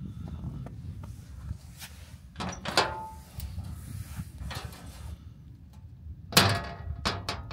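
Upper steel door of a sheet-metal garden smokehouse being opened, with a metallic clank and a short squeak about two and a half seconds in, then shut with a louder metal bang a little over six seconds in, followed by a few latch clicks.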